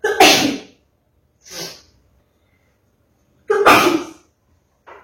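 A person sneezing hard twice, about three and a half seconds apart, each time followed by a weaker sneeze or blast of breath, set off by snuff inhaled up the nose.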